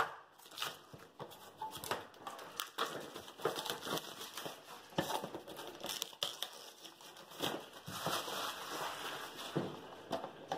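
Action camera's clear plastic box and cardboard packaging being handled and opened: irregular crinkling and crackling of stiff plastic with scattered sharp clicks.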